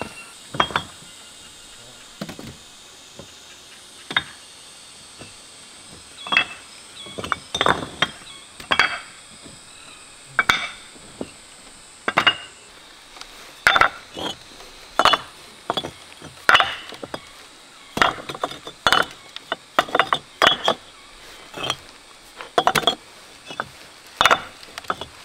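Red clay bricks clinking and knocking against one another as they are picked off a pile and set into a woven bamboo basket. The sharp clinks come only now and then at first, then come thick and fast from about six seconds in.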